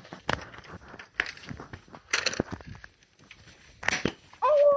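Scattered knocks and clicks of people moving and handling things in a dark room, about one every second, then a brief high-pitched tone near the end, the loudest sound.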